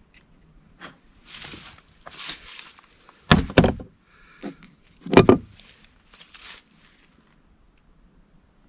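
Two short scraping rustles, then loud knocks: a quick double knock about three seconds in and a single one about two seconds later.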